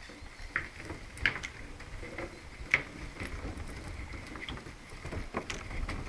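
Cross-skate wheels rolling over the planks of a wooden pier, with skating-pole tips tapping the boards: a low rumble with irregular sharp clicks and taps.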